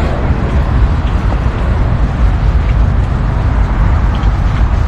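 Steady, loud, low rumbling noise outdoors: wind buffeting the microphone, mixed with road traffic on the adjacent road.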